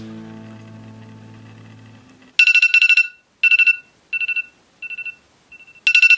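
The last notes of background music fade away, then about two and a half seconds in a smartphone alarm starts beeping: rapid high beeps in bursts of varying length, repeating.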